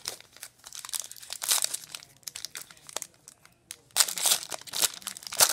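Foil trading-card pack being crinkled and torn open by hand, in irregular bursts of crackling, loudest about four seconds in.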